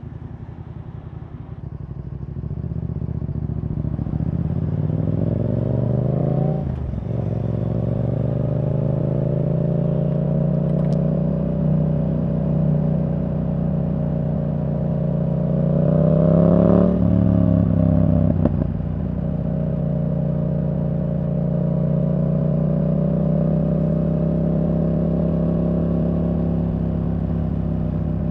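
Yamaha R7's 689 cc parallel-twin through a Yoshimura R77 exhaust, pulling up from low revs. It upshifts with a sharp break about seven seconds in, climbs again to a second shift about two thirds of the way through, then settles into a steady cruise.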